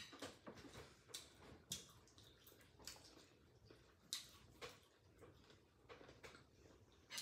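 Faint eating sounds: irregular soft mouth smacks and small clicks of chewing and handling food with the fingers.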